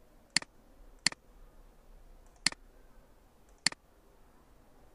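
Four sharp, single computer mouse clicks at uneven spacing over faint room tone.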